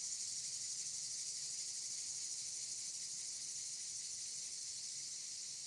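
Steady, high-pitched chorus of insects, unbroken throughout.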